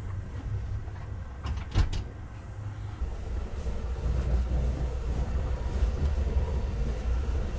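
Low, steady rumble of a passenger train car, heard from inside a roomette, with a few sharp clicks or knocks about a second and a half to two seconds in. From about three seconds in, the rumble gets heavier and a fabric blanket rustles as it is handled.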